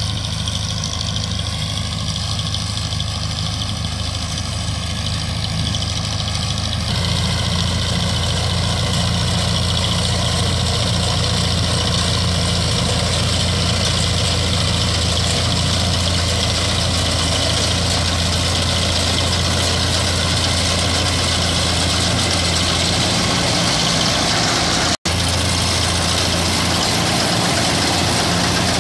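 Tractor-mounted combine harvester on a Powertrac tractor running steadily while cutting rice: a constant engine drone with broad mechanical noise from the harvesting machinery. It grows louder about a quarter of the way in as the machine comes closer, and the sound drops out for an instant near the end.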